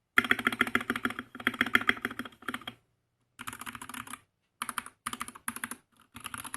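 Fast typing on a Gamakay TK68 mechanical keyboard with Gateron Silver linear switches and ASA-profile keycaps: quick runs of keystrokes broken by short pauses, with a spacebar that sounds thocky.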